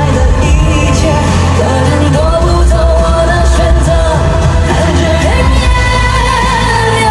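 Live pop performance: a singer holds long, wavering notes over band accompaniment with a strong steady bass.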